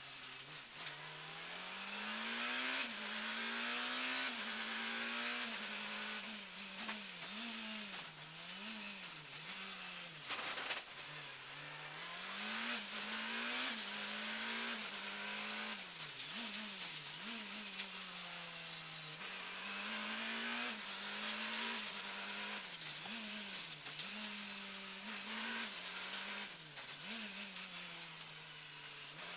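Rally car's engine heard from inside the cabin, its pitch climbing and dropping again and again as it is driven hard, over loud tyre and road noise. About ten seconds in the engine note briefly falls away before picking up again.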